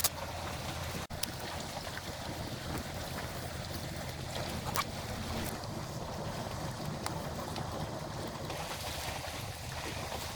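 Steady rush of wind and sea surf, with wind buffeting the microphone and a few faint clicks.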